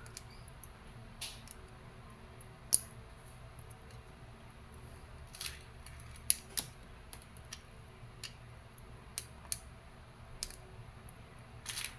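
Small sharp clicks of steel BBs being pressed one at a time into the eight-shot rotary cylinder of an Umarex Beretta PX4 Storm magazine, and of the cylinder being turned between rounds. The clicks come singly and irregularly, about a dozen, the loudest about three seconds in.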